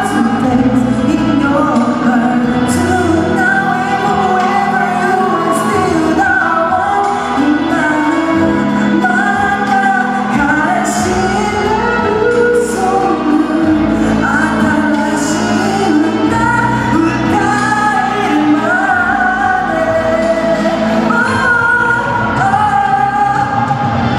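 A solo singer singing a pop song live into a microphone over a backing track, heard through a PA in a large hall.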